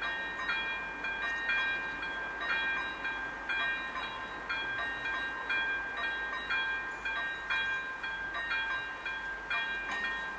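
Level-crossing warning bell ringing steadily, about two strokes a second, each stroke a bright chiming tone: the crossing signal is active as a train approaches.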